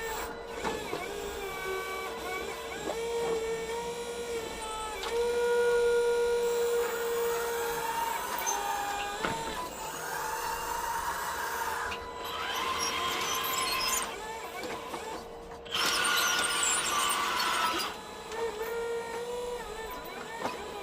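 Small electric motors of a 1:8 scale model excavator running, a whine that steps up and down in pitch as the machine is worked. It turns louder and rougher three times, for about two seconds each.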